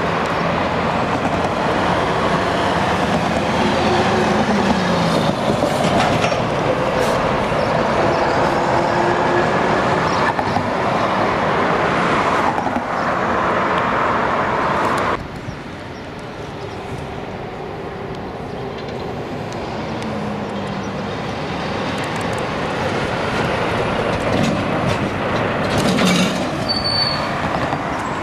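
Heavy road traffic passing close by: diesel trucks and cars with steady tyre noise on a busy road. The noise drops sharply about halfway through, then builds again as a tractor unit pulling an empty container-chassis trailer draws near.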